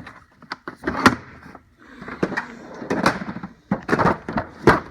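Steel drawers of a Snap-on toolbox sliding and shutting while metal tools clink and clatter inside: a quick run of sharp clicks and knocks, with a rattling stretch in the middle.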